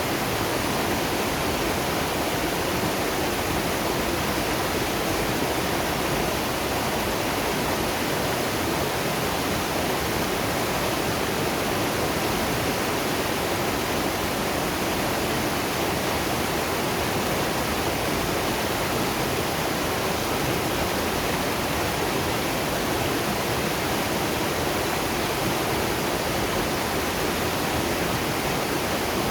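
Waterfall: falling water rushing steadily as an even, unbroken hiss.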